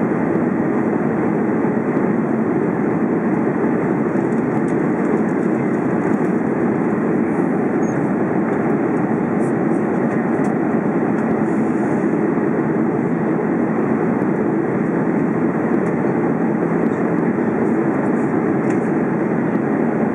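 Steady cabin noise of an Airbus A330 in flight, heard inside the cabin: an even, unbroken rumble of engine and airflow noise.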